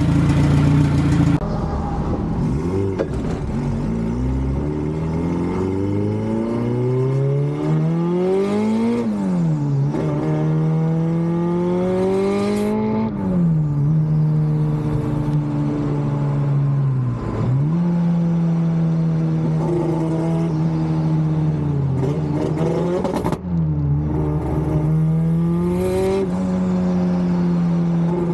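Turbocharged Honda K24 four-cylinder engine in a Subaru Impreza accelerating through the gears. The pitch climbs and then drops sharply at each gear change, several times, with steadier stretches of cruising between.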